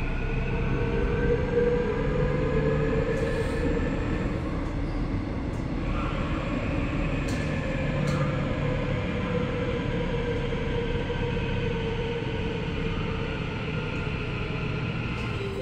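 Seoul Subway Line 9 train running at speed through a tunnel, heard from inside the passenger car. A steady rumble of wheels on rail lies under the electric traction motors' whine, whose several tones slowly rise and fall in pitch, with a few faint clicks.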